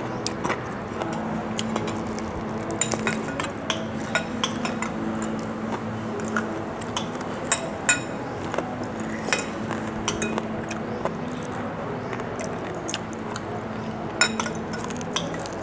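Spoons and forks clinking against ceramic bowls and plates during a meal, in scattered sharp clicks, over a steady low hum.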